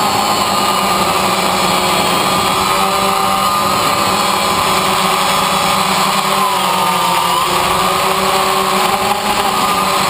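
DJI Phantom quadcopter's four electric motors and propellers buzzing steadily in flight, heard up close from on board, with small shifts in pitch as it manoeuvres.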